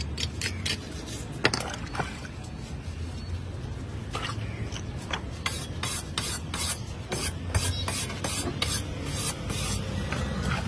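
A steel knife blade scraping in many short, sharp strokes, the strokes coming in quicker runs in the second half.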